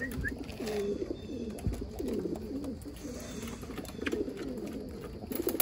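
Several homing pigeons cooing, their low wavering coos overlapping without pause, with a sharp click near the end.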